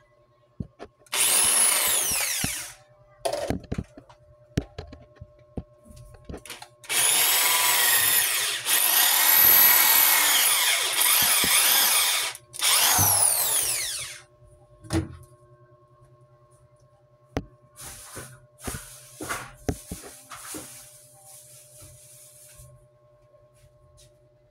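Corded electric drill boring a hole into a wall: a short run about a second in, then a long run with the motor's pitch rising and falling and a brief stop before a last burst. After that come a few knocks and a fainter hissing noise.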